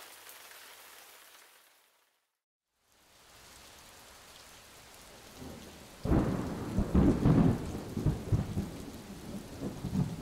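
Light rain as a faint steady hiss, cut to silence for about a second near two seconds in. From about six seconds in, loud irregular low rumbles and bumps on the microphone take over.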